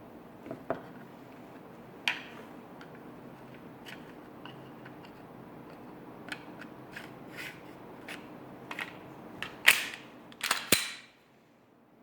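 Sharp mechanical clicks and clacks from a Glock 19-style pistol being handled. Most are light and scattered, with one louder clack about two seconds in and a cluster of the loudest ones near the end.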